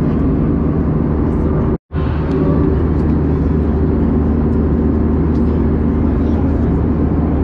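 Steady jet engine and airflow noise of an Airbus A320-232 with IAE V2500 engines, heard from the passenger cabin, with a low steady hum. It cuts out completely for an instant about two seconds in.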